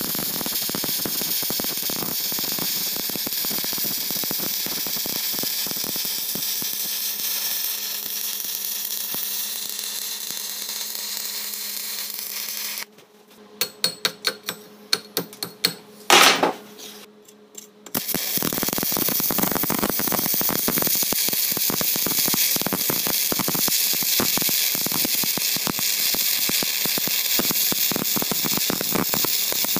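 Stick (arc) welding electrode crackling and hissing steadily while laying weld around a hub. About 13 s in the arc stops for several seconds of scattered clicks and taps with one short loud burst, then the arc is struck again and the crackling resumes.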